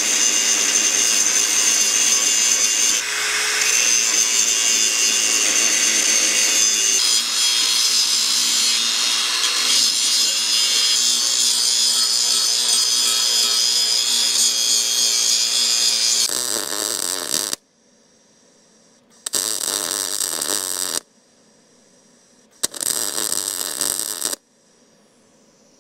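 Vulcan Omnipro 220 MIG welder's arc running on a quarter-inch steel truck frame rail: one long run of about sixteen seconds, then two short bursts of about two seconds each with quiet between, as the frame sections are tacked together.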